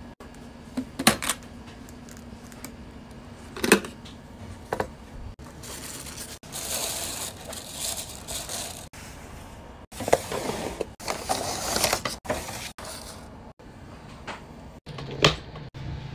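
Handling sounds: plastic storage containers and drawers clicking and knocking a few times, and tissue paper and shredded crinkle paper rustling as hands dig through it in two stretches through the middle. The sound cuts off abruptly several times where short clips are joined.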